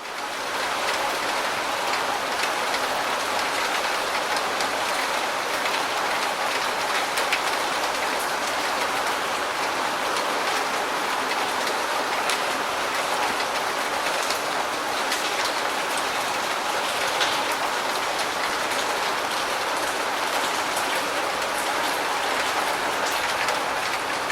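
Steady rain falling: an even hiss full of small drop ticks. It fades in over the first second.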